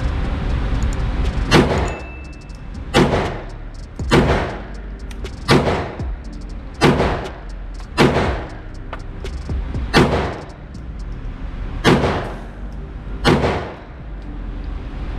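Nine single shots from a PSA Dagger 9mm pistol, a Glock 19 clone, fired one at a time about a second or two apart with a short echo after each. It is shooting cheap Tula 115-grain steel-case ammunition as a test of reliable feeding.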